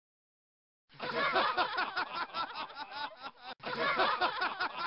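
Recorded laughter played as a sound clip, starting about a second in. It breaks off abruptly about three and a half seconds in and starts over.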